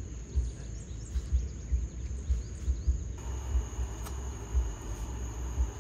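Outdoor campsite ambience: wind buffeting the microphone in irregular low gusts, over a steady high-pitched insect drone, with a few faint bird chirps in the first half. About halfway a broader hiss comes in.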